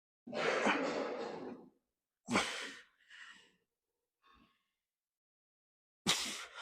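A man breathing hard, out of breath after a heavy set of leg exercise: a long heavy exhale, then shorter, weaker breaths, and another strong breath near the end.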